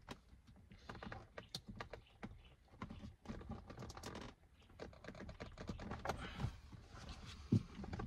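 Irregular light clicks and ticks of plastic clips and the metal seat frame as an Audi A8 D4 rear seat cushion is worked loose by hand, with a louder knock near the end.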